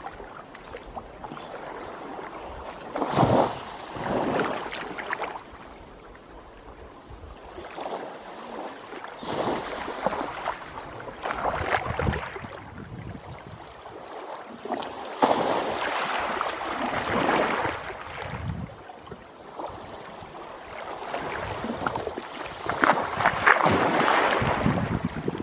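Small waves of a calm sea lapping and splashing against shoreline rocks, rising and falling in irregular surges every few seconds. The biggest splash comes near the end.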